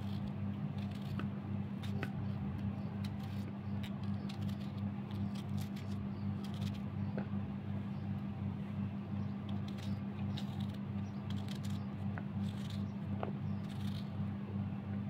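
Small knife slicing through an onion held in the hand, a run of short, irregular crisp cuts, over a steady low hum.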